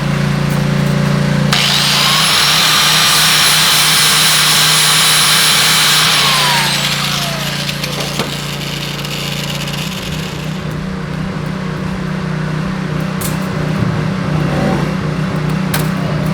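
A power grinder runs for about five seconds with a high whine, then is let off and winds down, its whine falling over a second or two. It is grinding off a mangled header stud. A steady low hum continues underneath.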